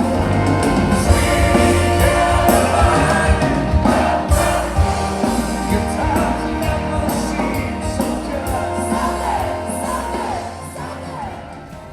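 Live band music with singing, fading down near the end.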